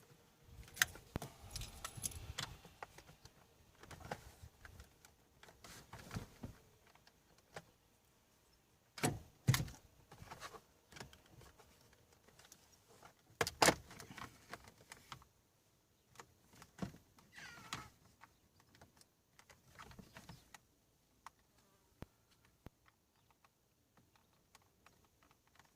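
Irregular clicks, taps and clatter of hand tools and plastic trim being worked on a car's steering column, with louder knocks about nine and thirteen seconds in and a short squeak a few seconds later.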